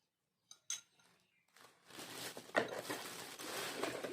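Gift packaging rustling and crinkling as it is handled, with many small clicks. A couple of faint clicks come about half a second in; the dense rustle starts about a second and a half in, with one sharper click partway through.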